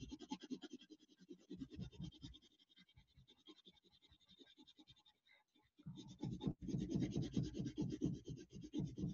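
Coloured pencil shading on paper: quick back-and-forth scratching strokes, in two spells with a pause of about three seconds between them, the second spell louder.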